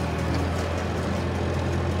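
Fordson Dexta tractor's three-cylinder diesel engine running steadily at idle with an even low hum, newly revived and running on its first start after restoration.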